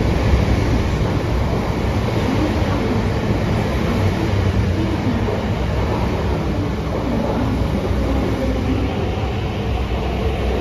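Metro train moving along an underground platform: a loud, steady rumble of steel wheels on rail with a faint electric motor whine.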